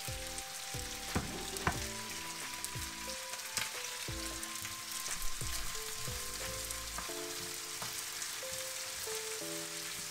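Chicken pieces and sliced red onions sizzling in a hot wok, with a spatula stirring and scraping through them and knocking against the pan a few times. The onions have just gone into the hot oil.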